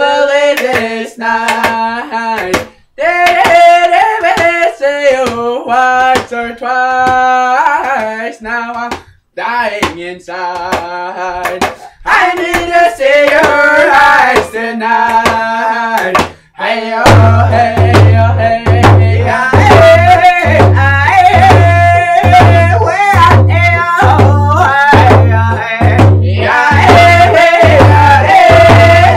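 Two men singing a hand-drum song together, with brief breaks in the first half. About halfway through a hand drum comes in with a steady, even beat, a little over one beat a second, under the singing.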